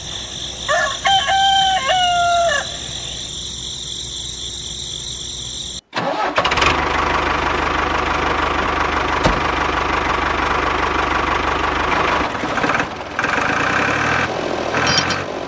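A rooster crows once, about a second in, over a steady high hiss. After a cut about six seconds in, an engine starts and runs steadily until near the end.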